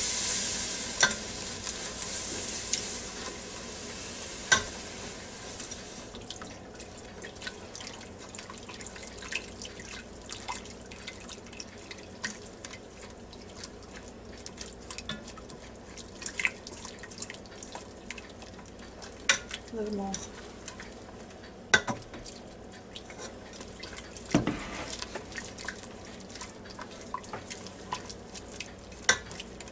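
Milk poured into a hot butter-and-flour roux in the Ninja Foodi's pot, sizzling at first and dying away over the first several seconds. Then a wire whisk stirring the gravy, with scattered clicks and taps against the pot.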